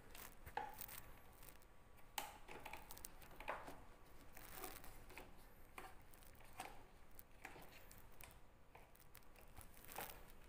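Faint, scattered clicks and rustles of hands handling motorcycle parts around the seat and battery compartment, about half a dozen small knocks spread through, otherwise near silence.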